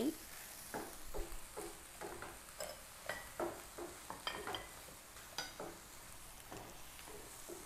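Yangzhou fried rice being stir-fried in a pan with a wooden spatula: irregular scrapes and tosses about once or twice a second over a faint sizzle.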